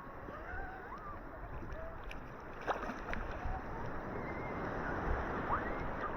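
Ocean waves washing on the beach: a steady surf rush that swells toward the end, with a sharp tap a little under three seconds in and faint wavering high tones over it.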